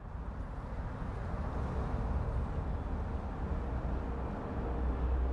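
Low, steady rumble under a wash of noise, with faint held tones coming in during the second half. It is the film's opening ambience.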